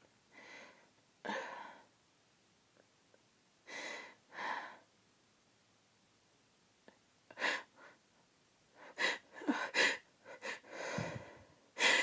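A woman's breath catching in short, sharp inhales as a sneeze builds, the breaths few at first and then coming faster and louder in the second half as she tries to hold the sneeze back.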